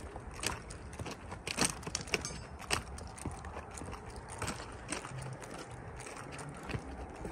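Footsteps of a person walking along a railroad track, shoes on the gravel ballast and ties, at an irregular walking pace; the sharpest steps fall in the first three seconds.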